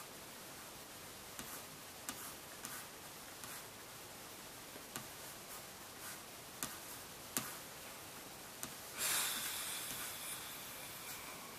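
Scattered light clicks and taps in a quiet small room, one every half second to a second, with a brief hissing rustle about nine seconds in that fades over a second or two.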